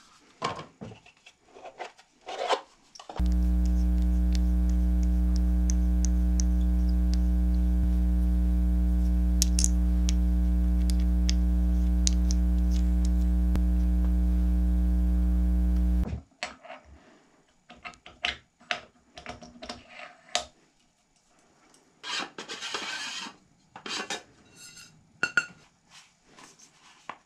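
A loud, steady electrical hum with a buzz in it comes in suddenly about three seconds in and cuts off suddenly some thirteen seconds later, with small clicks over it. Around it are scattered clicks, rubs and scrapes of a metal laser collimator being handled.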